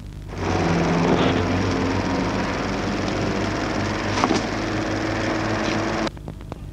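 A steady mechanical running drone with a low hum, dropping out briefly at the start and again about six seconds in.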